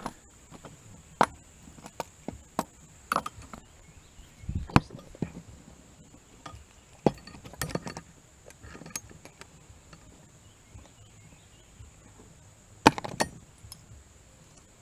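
Irregular metallic clinks and knocks of a wrench being fitted to and worked on the small bolts of a Jeep's exhaust turbo whistle. About a dozen sharp clicks are spread unevenly, and the loudest come around five seconds in and again near the end.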